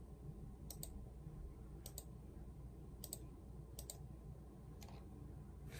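Computer mouse clicking faintly, about five clicks roughly a second apart, each a quick double tick of button press and release, while clicking through a video player's settings menus.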